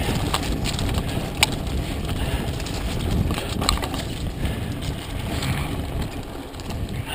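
Mountain bike descending a dirt singletrack at speed: wind buffeting the camera microphone over the rumble of tyres on dirt and the rattle of the bike. A few sharp clacks cut through, the loudest about a second and a half in.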